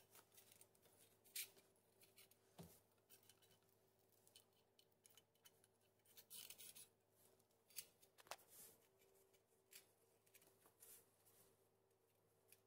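Near silence, broken by a few faint clicks and short scrapes of a plastic cross tile spacer being pushed into the joint and fingers working on a porcelain floor tile.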